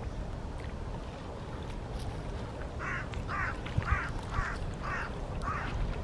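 A duck quacking six times in a row, about two quacks a second, starting about halfway through.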